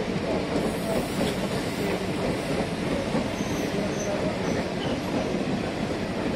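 Passenger train running on the rails: a steady rumble of wheels on track.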